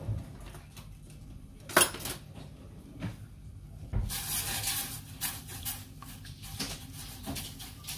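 Metal spoon clinking and scraping against a stainless steel saucepan as butter is stirred into milk. There is one sharp clink a little under two seconds in, and a scraping stir at about four seconds, followed by lighter taps.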